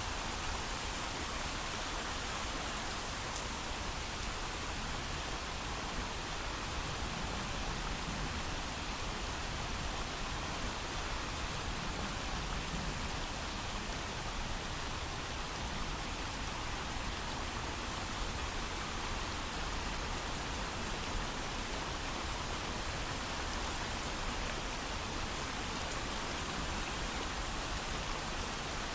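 Steady, heavy rain falling, an even hiss with no thunder.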